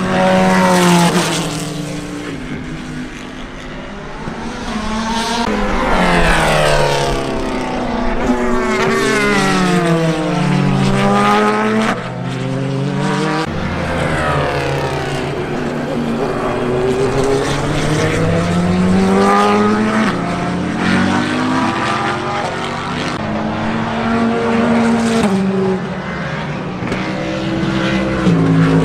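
Race cars, the Corvette C8.R among them, passing on track at speed in several waves. Their engine notes rise and fall in pitch as each car goes by, the notes of several cars overlapping.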